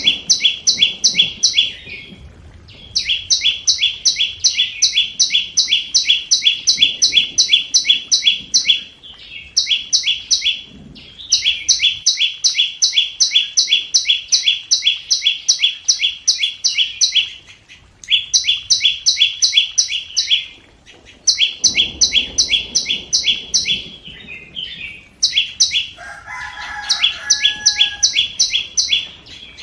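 Scarlet-backed flowerpecker decoy call: rapid runs of sharp, high ticking notes, about four a second, broken by short pauses. About 26 s in, a lower, drawn-out call from another bird sounds briefly beneath them.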